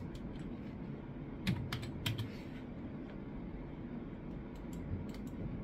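Keys tapped on a computer keyboard: a quick run of keystrokes about one and a half seconds in, then a few scattered taps near the end.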